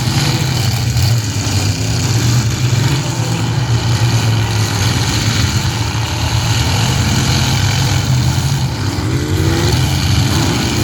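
Demolition derby cars' engines running loud together, with one engine revving up near the end.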